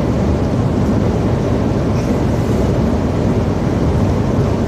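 Steady rumble of a truck driving on a wet road, heard from inside the cab: engine drone with tyre and road noise.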